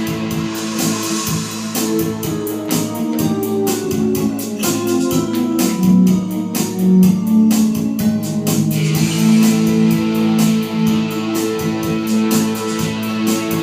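Instrumental break of a karaoke backing track: guitar and organ-like keyboard over a steady drum beat, with no singing.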